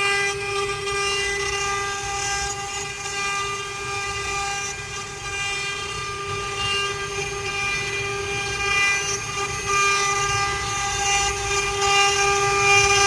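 Spindles of a four-head CNC wood carving router running, a steady high whine with a hiss underneath that swells and fades.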